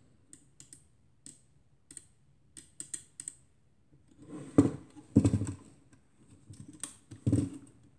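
Light clicks from the controls and struts of a KW Etui folding camera's Compur shutter being worked by hand, about a dozen in the first few seconds. Then come heavier knocks and rubbing as the camera is handled and turned on the table, with the loudest knocks about halfway through and near the end.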